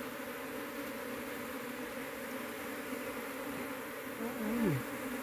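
Asian honey bees (Apis cerana) buzzing steadily as a dense swarm around their ground nest, the colony disturbed as the nest is dug open by hand. A short voice sound cuts in briefly near the end.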